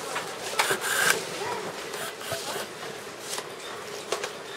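Handwork at a tablet assembly bench: short scraping, rustling runs and clicks as an electric screwdriver drives screws into a tablet in a plastic sleeve, the longest run about half a second in, with faint voices in the room.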